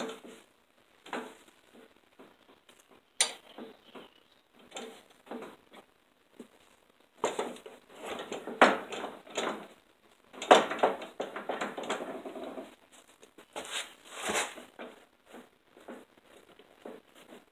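Riding mower front wheel with new bearings being slid and worked onto its freshly wiped spindle shaft: scattered metal clicks and scraping, with a sharp click about three seconds in and two longer spells of scraping about halfway through.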